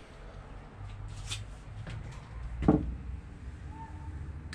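Two knocks over a low, steady rumble, the louder one about two and a half seconds in, with a brief faint tone near the end.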